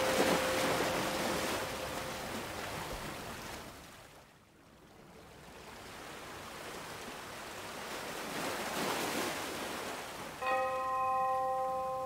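Sea waves surging and washing in two swells with a quieter lull between them. A single bell-like chime is struck near the end and rings on, and another chime tone held over from before fades away in the first couple of seconds.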